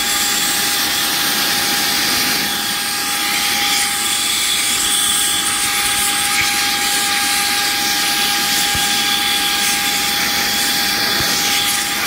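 Saker 3-in-1 cordless handheld vacuum with a brushless motor, running in blower mode: a steady rush of air over a steady high motor whine.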